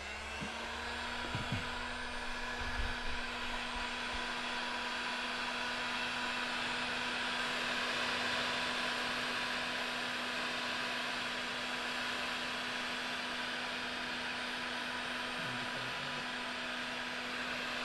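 Heat gun running, its fan blowing with a steady rushing hiss and a low hum; it comes up to full speed over about the first second, then holds steady. It is drying a first coat of 20-minute setting-type joint compound on a drywall patch.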